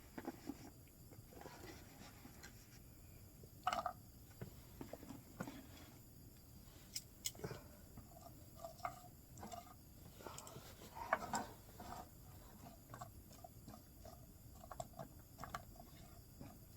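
Onions crackling and popping in melted butter in a pan, with a couple of louder knocks about four and eleven seconds in.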